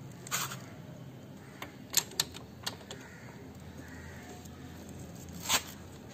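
A few sharp metallic clicks and clinks, spread out and irregular, the loudest about two seconds in and again near the end, as a steel socket and its wrench are seated on the oil strainer screen cap of a scooter engine and turned to tighten it.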